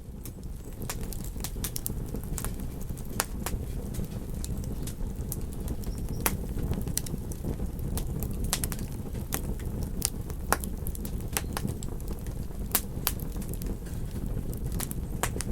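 Campfire crackling, with sharp irregular pops and snaps every fraction of a second, over a steady low rush of surf.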